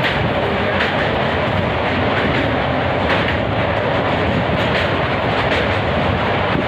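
A train running across a steel truss bridge, heard from an open coach doorway: a steady loud rumble and rattle of the wheels on the rails, with light clacks every second or so.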